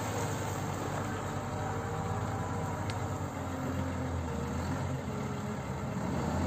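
Volvo L180 wheel loader's diesel engine running steadily under load as the machine backs away with a full bucket of stone and raises the boom, with a fainter tone that drifts in pitch over the engine note.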